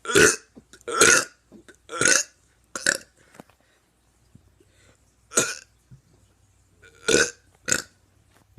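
A teenager burping repeatedly: seven short burps, the first four about a second apart, then after a gap of about two seconds three more, the last two in quick succession.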